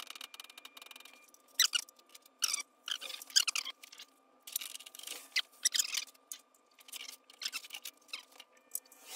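Irregular clicks, knocks and short scrapes of hand tools and metal parts being handled while a small engine is fitted to a go-kart, over a faint steady high hum.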